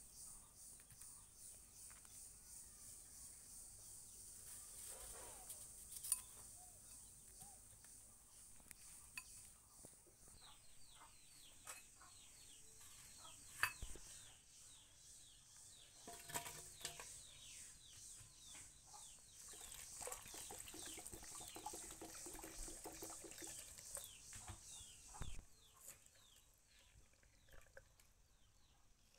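Faint background of birds chirping in quick falling notes, densest through the middle, with a few sharp clinks of a utensil against a glass bowl.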